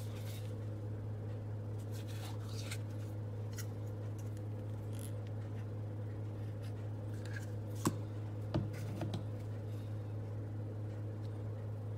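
A steady low hum runs throughout, with light scrapes and taps scattered over it and a couple of sharper clicks about eight to nine seconds in.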